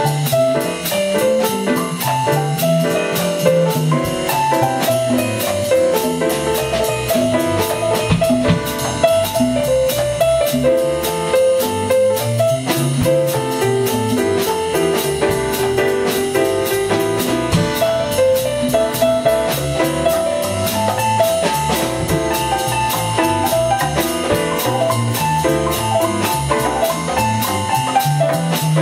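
Jazz piano on a grand piano taking the lead over a walking electric bass line and a drum kit keeping steady time on the cymbals.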